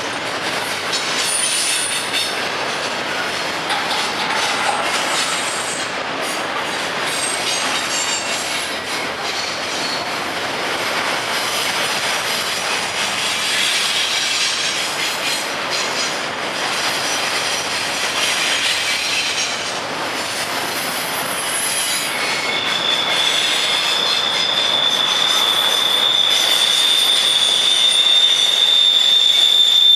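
Freight train cars rolling past, with wheels squealing in scattered high tones. About two-thirds of the way through, a steady high-pitched wheel squeal sets in and holds, and the sound grows slightly louder.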